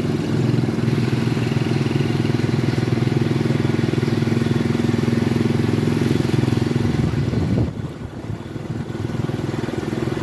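Motorcycle engine of a sidecar motorbike running steadily under way, heard from the bike itself. A little over seven seconds in, the engine note falls and it runs quieter as the revs drop, then picks up a little again near the end.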